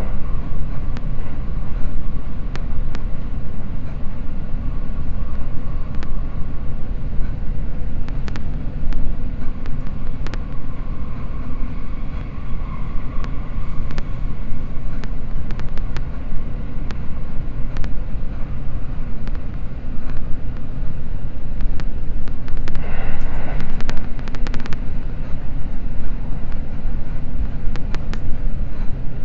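Cabin running noise of a Seibu Red Arrow limited express train at speed: a steady low rumble with scattered sharp clicks of the wheels over rail joints, and a brief brighter rushing sound about three-quarters of the way through.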